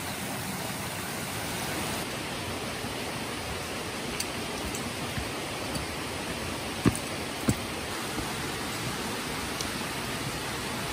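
Steady rushing of a mountain valley stream. Two sharp clicks about half a second apart come a little past the middle.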